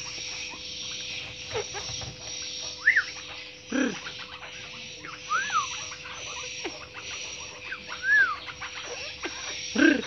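White-browed crake calling: a few short notes that rise and fall in an arch, spaced a couple of seconds apart, with one louder, lower call between the first two. A steady hum and hiss run underneath.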